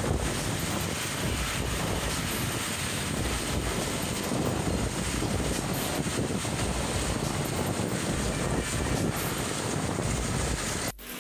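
The engine of a walk-behind concrete power trowel running steadily as its blades sweep across the fresh slab.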